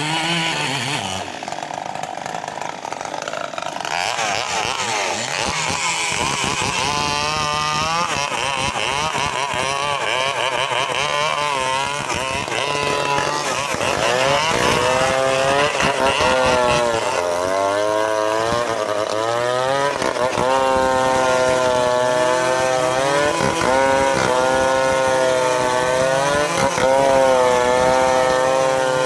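Stihl MS 381 two-stroke chainsaw cutting through a thick rain-tree log at high revs, its pitch repeatedly dipping and recovering as the chain loads up in the cut. It gets louder and holds a steadier high pitch about halfway through.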